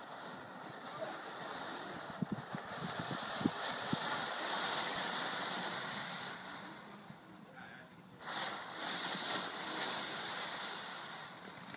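Fireworks hissing as they spray sparks, a steady rushing hiss with a few faint crackles; it dies down about eight seconds in, then starts again.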